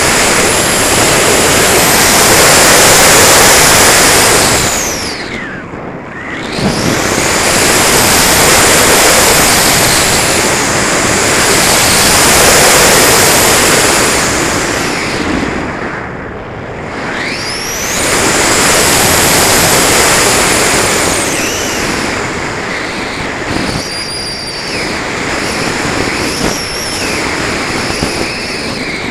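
Air rushing past a Multiplex Heron RC glider and its onboard camera in flight, with a high whine. It swells and fades with airspeed, dipping twice with the whine sliding down and back up, and is quieter and steadier near the end.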